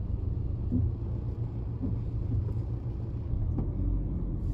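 Steady low rumble of a car's engine and running gear, heard from inside the cabin while driving in slow traffic.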